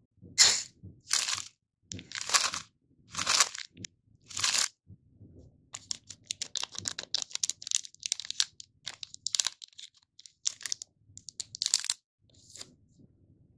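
Foil-lined Lotte Crunky chocolate bar wrappers squeezed and crinkled by hand: five loud crunches in the first five seconds, then a long run of fine crackling. Near the end scissors snip the wrapper open.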